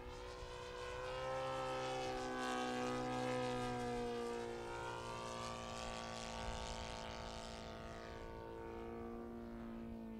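Saito FG-57TS twin-cylinder four-stroke petrol engine and propeller of a flying aerobatic model plane, running steadily at high throttle. The pitch holds mostly level, and the sound is loudest about one to four seconds in.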